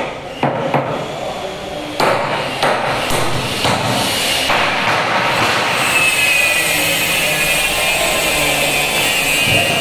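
Hammer striking plywood in irregular knocks during the first several seconds of carpentry work, over a steady rushing background noise that carries on alone afterwards.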